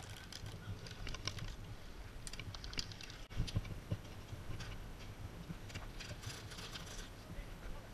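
Scattered light clicks and taps, bunched into two quick runs of rapid ticks, one about a third of the way in and one near the end, over a low steady rumble.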